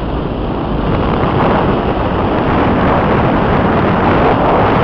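Wind rushing over the microphone of a camera riding on an RC plane in flight: a steady, loud rush with no clear motor tone, growing a little louder about a second in.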